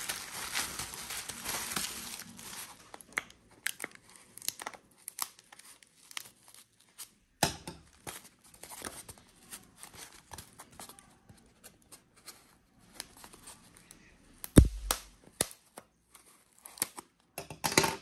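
Bubble-wrap packaging crinkling and tearing as it is pulled off a box, then scattered sharp clicks and short rustles as scissors and a styrofoam box are handled, with one louder knock about three-quarters of the way through.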